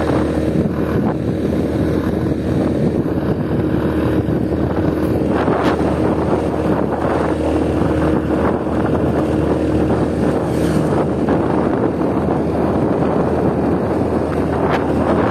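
Motor scooter engine running at a steady cruising speed, with wind rushing and buffeting the microphone.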